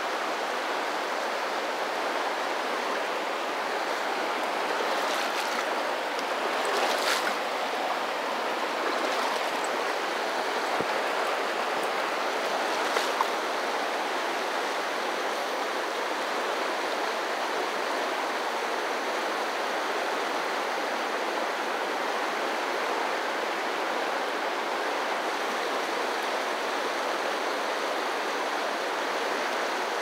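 Fast river water rushing steadily over a rocky riffle, with a few brief sharp sounds about seven and thirteen seconds in.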